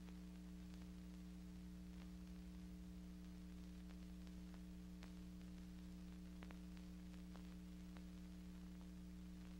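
Near silence: a steady low electrical hum with faint, scattered clicks.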